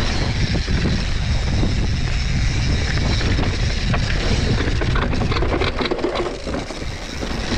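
Mountain bike descending a rough technical trail at speed: wind rumbling on the microphone over the noise of tyres on dirt and rock. In the second half the bike clatters and rattles over bumps.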